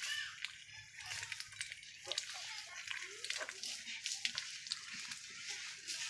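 Duck drinking and dabbling its bill in a bowl of water: a run of small wet splashes and sharp clicks.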